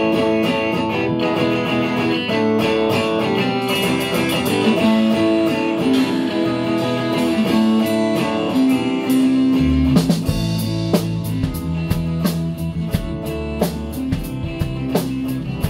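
Electric guitar, a Telecaster-style solid body, strumming and picking chords. About ten seconds in, a low bass part and a drum beat join in.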